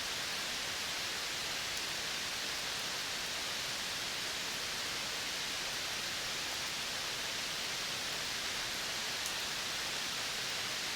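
Steady, even hiss of outdoor natural ambience with no distinct calls, plus one faint tick about nine seconds in.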